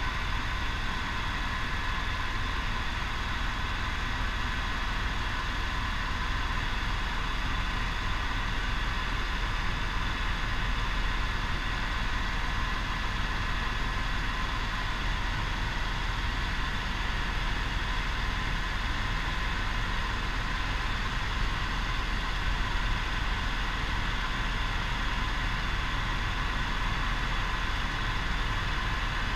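Helicopter in cruise flight heard from inside the cabin: a steady low rumble of rotor and engine with a constant high whine over it.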